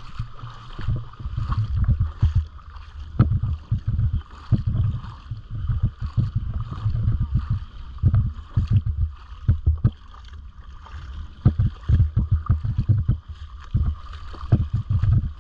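Wind buffeting the phone's microphone in uneven gusts, over the wash of shallow sea water.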